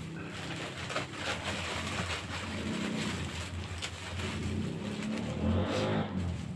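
Large clear plastic bag full of Christmas garland and tinsel rustling and crinkling as it is gathered and tied shut, loudest near the end. A steady low rumble runs underneath.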